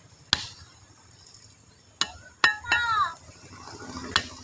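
Butcher's cleaver chopping beef on a wooden log block: four sharp chops at uneven intervals, the second and third close together.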